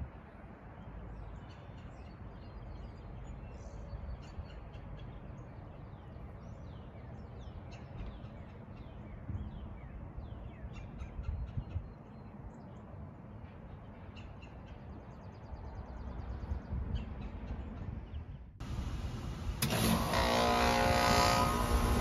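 Mini-split heat pump outdoor unit running with a low steady hum, birds chirping over it. About three seconds before the end it cuts abruptly to a louder, different steady noise.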